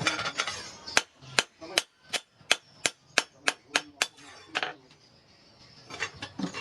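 Hammer striking metal in a quick, even series of about ten blows, roughly three a second, with a few scattered strikes after.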